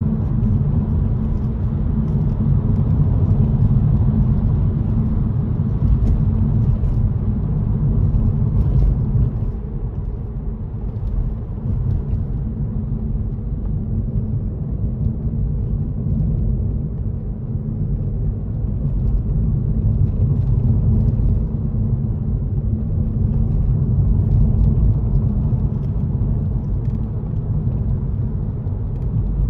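Steady low rumble of engine and road noise inside a moving car's cabin, easing a little about ten seconds in and building again.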